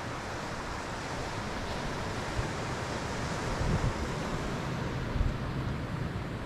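Ocean surf washing over and around rocks as a steady rushing noise. Wind buffets the microphone, with a couple of low thumps about halfway through and near the end.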